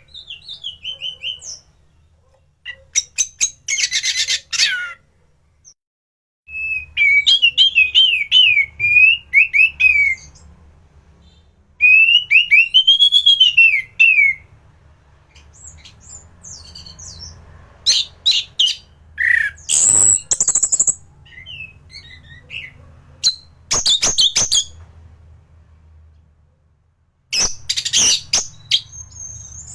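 Anis thrush singing in loud, varied bursts: sliding whistled warbles alternating with rapid, scratchy chattering trills, the phrases separated by short pauses.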